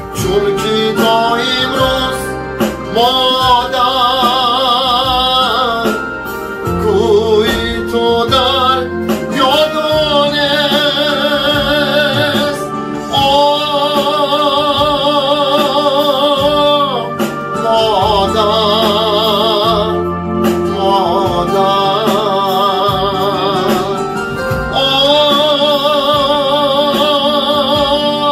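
Song music: electronic keyboard backing with a steady beat and held chords under a lead melody of long, wavering held notes.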